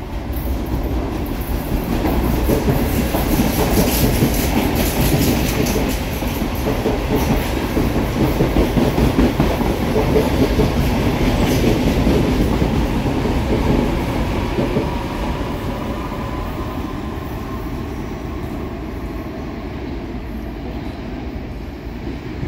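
Electric commuter train passing close by, its wheels clattering over the rail joints. The clatter is loudest in the first half and then eases off as the train draws away. A faint rising whine comes in around the middle.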